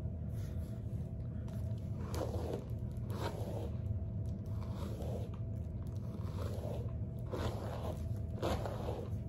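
Straight wig hair rustling as fingers run down through it, a string of short scraping swishes about once a second, over a steady low hum.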